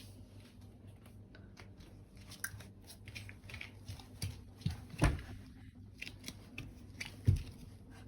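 Handling noises: scattered light clicks and rustling, with two louder dull thumps about five and seven seconds in, over a low steady hum.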